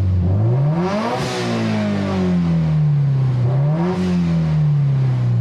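Turbocharged Subaru engine with a catless downpipe, revving up for about a second, then easing off in a long falling sweep; it rises briefly again about four seconds in and falls away.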